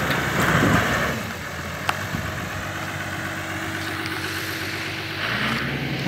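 Diesel engine of heavy road-construction machinery running steadily at low speed, a constant hum with a held tone through the middle.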